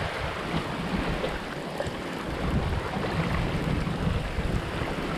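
Wind buffeting the microphone over the rush of water along a sailboat's hull, with the boat sailing at about 6.5 to 7 knots in squall wind of around 20 knots.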